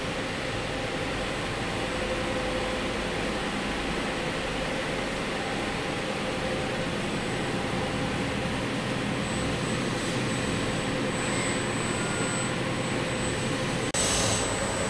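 Steady whir and hiss of laboratory machinery and ventilation, with a faint high whine joining after about nine seconds. Near the end the sound cuts off abruptly and a short, louder hiss follows.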